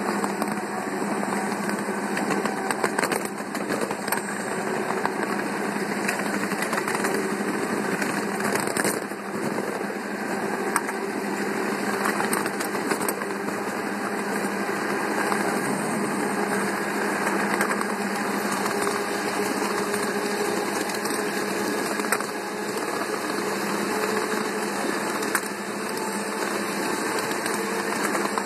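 Ride-on scale model locomotive running along its track: a steady mechanical drone from the drive, with scattered clicks from the wheels on the rails.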